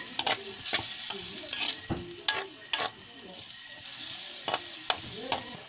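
Metal ladle stirring and scraping seafood in a wok, with irregular clinks against the pan, over the sizzle of the pieces frying in soy sauce.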